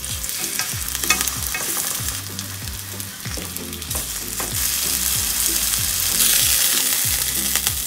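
Thin, flour-coated pork slices sizzling in hot oil in a nonstick frying pan. The sizzle grows louder about six seconds in, and there are a few light clicks about a second in as wooden chopsticks lay more slices into the pan.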